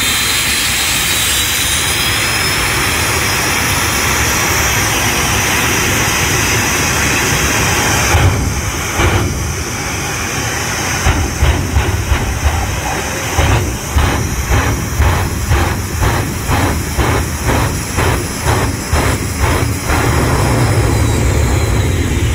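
Jet engine of a jet-powered fire truck running steadily and loud. About 8 seconds in it changes to a string of pulsing bursts, roughly two a second, as flames are fired from its exhaust stacks. Near the end it goes back to one steady, loud run as a long flame shoots from the tail.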